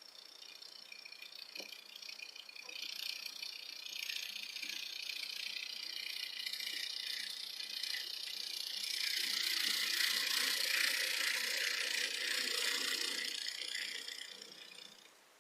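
Small geared motor whirring, with a gear rattle and a high whine. It grows louder toward the middle and fades out near the end.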